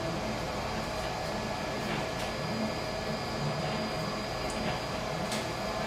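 ShopBot CNC gantry's motors running steadily as it moves a clay extruder round in continuous circles, building up a clay cylinder layer by layer. The low hum rises and falls in a repeating pattern, with a few faint clicks.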